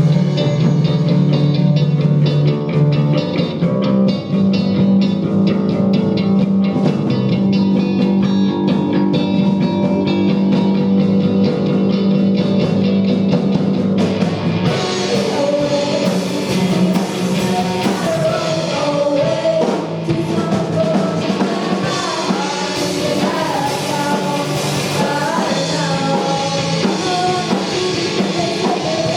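Rock band playing live, with guitar and drums. For the first half, sustained chords ring under the guitar. About halfway through, cymbals open up and a singer comes in.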